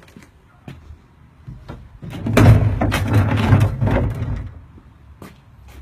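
A door being handled: a few light clicks, then about two seconds in a loud stretch of knocking and rumbling lasting about two seconds.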